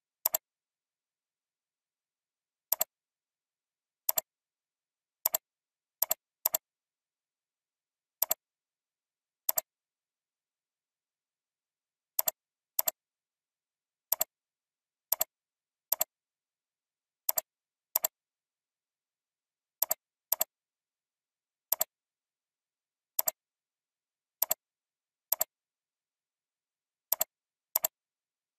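Computer mouse button clicks, sharp and irregularly spaced, some in quick pairs, about twenty in all with dead silence between them.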